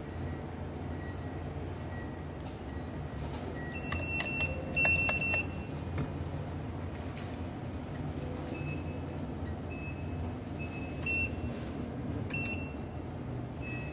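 Hitachi ATM at work while a card is processed: a steady low machine hum, a few mechanical clicks about four seconds in, then a high beep of about half a second and several shorter, fainter beeps later on.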